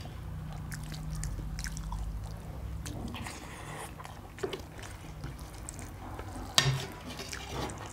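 Eating sounds: chewing, with scattered light clicks of a spoon and fingers on steel plates and one sharper click about six and a half seconds in, over a low steady hum.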